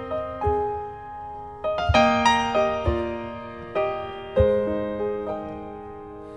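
Slow solo piano introduction to a ballad: chords and single notes struck every half-second to a second or so, each left to ring and fade.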